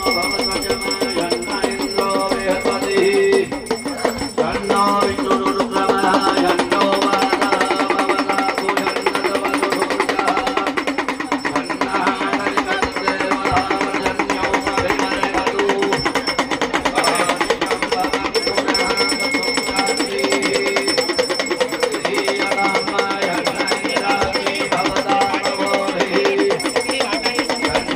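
Music with a fast, steady percussion beat and sustained melody notes.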